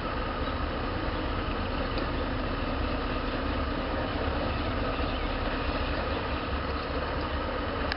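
EMD GP7 diesel-electric locomotive's engine running at low throttle as it creeps along the track: a steady low rumble. A faint click comes about two seconds in.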